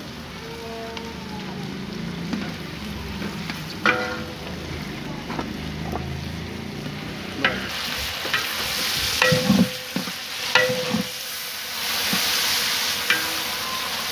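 Food frying and sizzling in hot oil in a cooking pot while a metal ladle stirs it, with a few sharp knocks of the ladle against the pot. The sizzle grows louder about halfway through.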